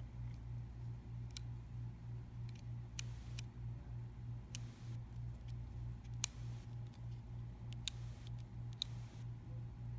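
Scattered sharp clicks and taps from handling a stun flashlight and working its thumb slide switch, the loudest about six seconds in. Under them runs a low hum that throbs about three times a second.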